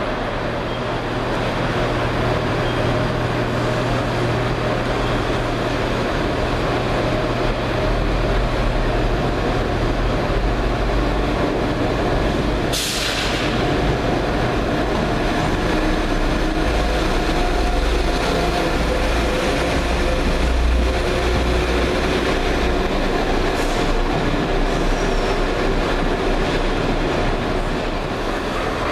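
Diesel multiple units, a London Midland Class 172 Turbostar and a Chiltern Railways Class 168, running at the platform: a steady diesel engine hum with a heavier low rumble through the middle, and a brief sharp burst of noise about thirteen seconds in.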